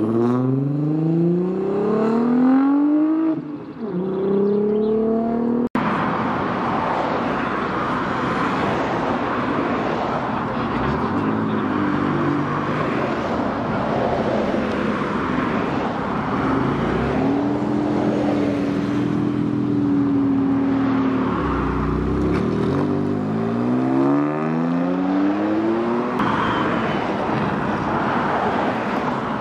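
Car engines revving and accelerating away one after another, their pitch climbing through the gears, with a sudden cut about six seconds in. Later one engine is held at steady revs for a few seconds before another car accelerates hard, its pitch rising again.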